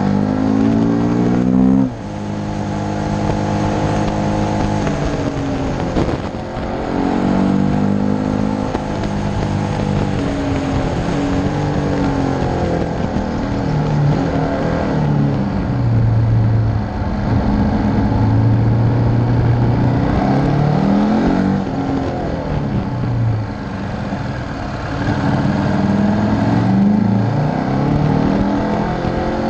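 KTM V-twin motorcycle engine, heard from an onboard camera on the bike, revving up and down through a series of bends: the pitch rises as it accelerates out of each curve and falls back when the throttle closes, with a sudden drop about two seconds in and a steadier, lower stretch midway. Wind rushes against the microphone throughout.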